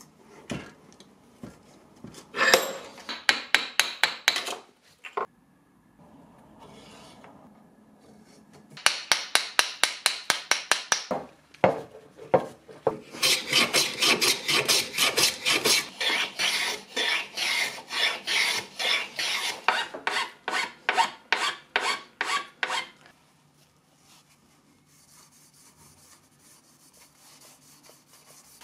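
Small hand plane shaving a maple knife-handle blank in quick repeated strokes, about three or four a second, in three runs, the last and longest lasting about ten seconds. Near the end, a faint soft rubbing of a rag wiping finish onto the handle.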